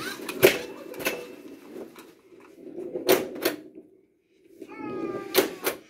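Sharp mechanical clacks of a 1979 Briarwood Demolition Classic pinball machine's flippers and playfield parts as it is played: single knocks and quick pairs, about six in all.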